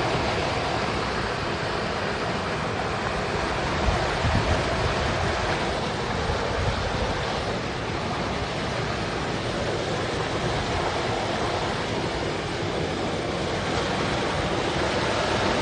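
Steady rushing wind outdoors, with brief low rumbles of wind buffeting the microphone about four seconds in.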